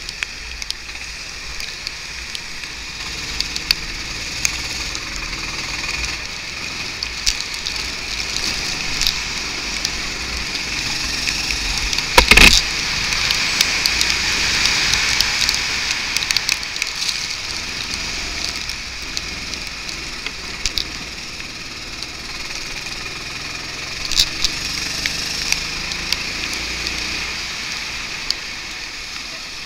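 Go-kart engine heard from the kart's onboard camera while lapping a wet track, rising and falling with speed under heavy wind and water-spray noise. Scattered short clicks throughout, and one loud sharp knock about twelve seconds in.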